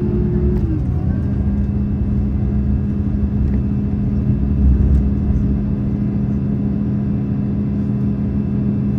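KiHa 283 series diesel railcar running, heard inside the passenger cabin: a steady engine hum over low rumble. A higher tone drops in pitch about a second in, then the sound holds level.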